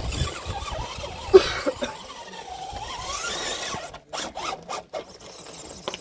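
RC rock crawler's Tekin 35T brushed motor and geartrain whining, the pitch rising and falling with the throttle as it drives onto the rock. A sharp knock about a second and a half in, and scattered clicks and knocks in the last two seconds as the tyres and chassis work over the rock.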